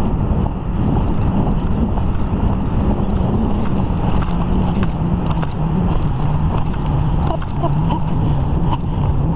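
Wind buffeting the microphone of a horse rider's camera as a steady low rumble, with the horse's hoofbeats on the sandy trail faint underneath.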